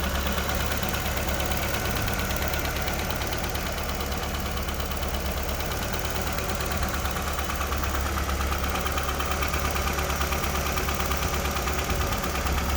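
A Nissan Figaro's 1.0-litre turbocharged four-cylinder engine idling steadily with an even, rapid pulse after its rebuild.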